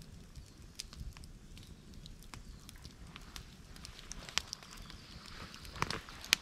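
Wood campfire crackling quietly, with irregular sharp pops, a few louder ones near the end.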